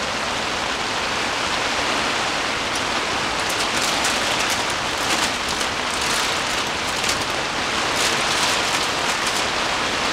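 Heavy downpour on the fabric of a camping tent, heard from inside: a dense, steady hiss of rain with many sharp drop taps from about three seconds in.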